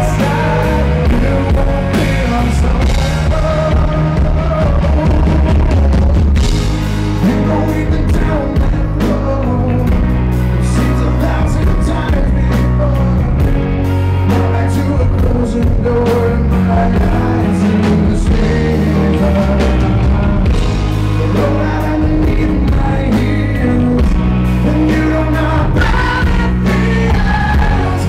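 Live rock band performing: a male lead singer over electric guitar, bass guitar and drums.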